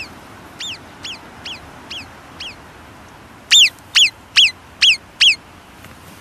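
Alpine marmot alarm calls: a series of short, sharp whistles, each falling quickly in pitch, about two a second. The second half holds a run of five much louder whistles. The calls warn the colony of danger.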